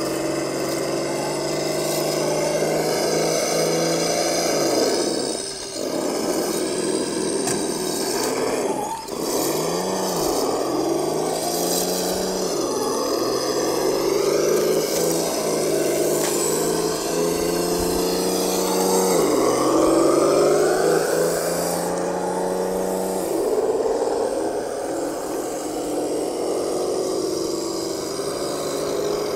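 Electric motors and gearboxes of radio-controlled scale rock crawlers whining as they crawl, the pitch stepping up and down with the throttle and dropping out briefly a few times.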